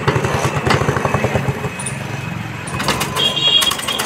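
Bajaj Chetak scooter engine being turned over, a fast, even puffing that fades after about two seconds, followed by a few sharp clicks near the end.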